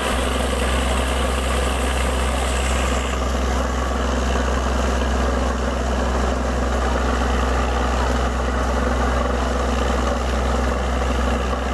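Borewell drilling rig running steadily: a heavy engine's low drone with water and mud rushing and splashing out of the bore around the drill pipe under pressure.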